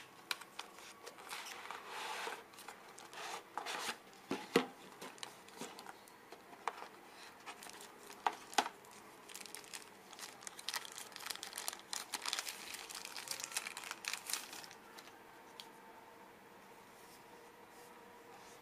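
A smartphone retail box being unpacked by hand: rustling packaging with many irregular clicks and taps. The handling dies down to quiet room noise about fifteen seconds in.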